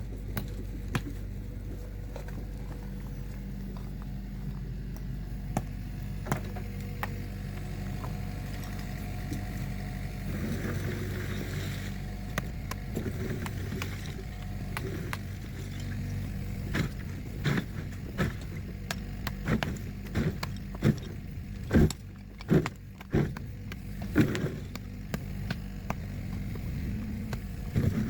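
An engine runs steadily at a low pitch. From about the middle on, a series of sharp knocks and clanks comes over it, thickest a few seconds before the end.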